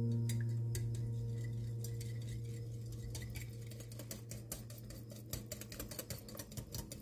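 Wire whisk beating eggs in a glass bowl: quick, irregular clicks of the wires against the glass that grow busier towards the end. Under it, a held low piano note fades away.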